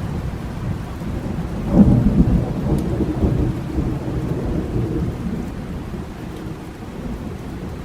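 Thunderstorm: steady rain under a low rumble of thunder, with a louder thunder peal about two seconds in that rolls on and fades over the following few seconds.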